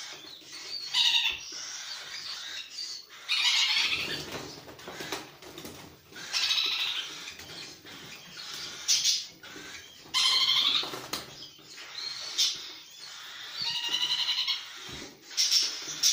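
Hungry cockatiels being spoon-fed give harsh, rapidly pulsing begging calls in bursts of about a second, one every two to three seconds, with some wing flapping between them.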